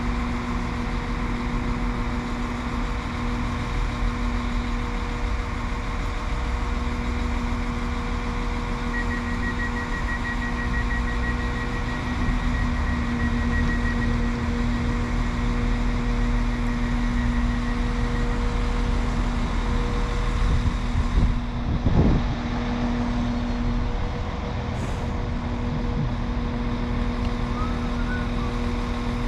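Northern Class 195 diesel multiple unit idling at the platform, a steady engine hum. A rapid high electronic beeping sounds over it for about nine seconds, from roughly a third of the way in.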